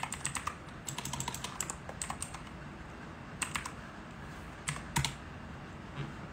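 Several short runs of quick, light clicks and taps, like typing: about five bursts of a few clicks each, the loudest near the start and about five seconds in.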